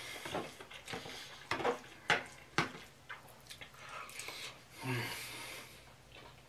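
A metal fork clicking and scraping in a plastic bowl, several sharp taps close together, with chewing and a brief low hum of the voice about five seconds in.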